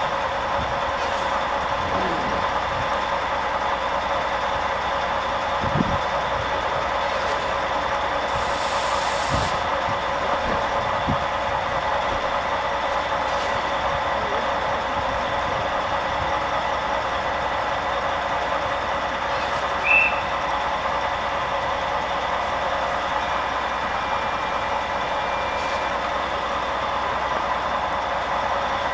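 AŽD 71 level crossing warning bells ringing steadily and without a break, the crossing's signal that a train is due while the red lights flash and the barriers are down. A short hiss comes about nine seconds in, and a brief high squeak about twenty seconds in.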